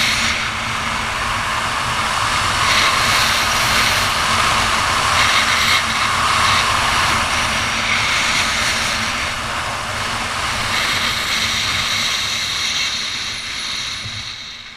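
Wind rushing over a helmet-mounted camera's microphone during a parachute canopy descent, steady and loud, then dying away near the end as the skydiver reaches the ground.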